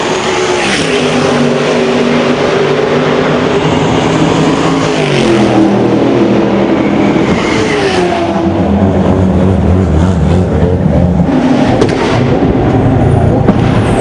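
GT race car engines running at high revs on a circuit, the pitch dropping and climbing again a few times as the cars pass and change gear.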